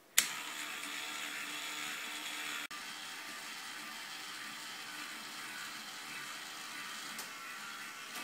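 A switch clicks and a K'Nex motor starts, then runs with a steady whir as it drives the plastic gears of a back-roll ball lift.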